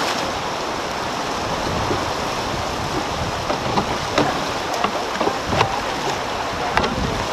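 Steady rush of whitewater in a river rapid around a canoe, with several brief sharp sounds over it in the second half.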